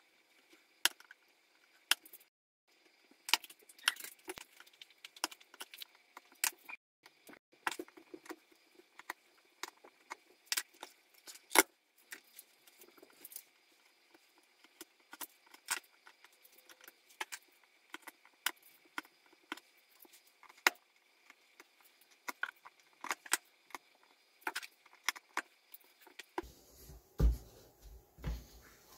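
Scalpel blade cutting and picking at the screw holes in a rubber magnet sheet on a 3D-printer bed: irregular small sharp clicks and scrapes. Near the end a few dull thumps as the bed is handled.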